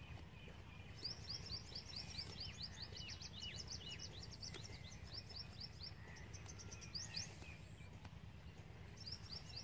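A small bird singing a fast run of short, falling chirps over a low steady rumble. The chirps start about a second in, pause briefly, and return near the end.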